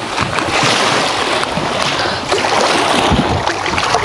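Strong wind on the microphone and choppy waves lapping against a small inflatable boat, with occasional low thumps.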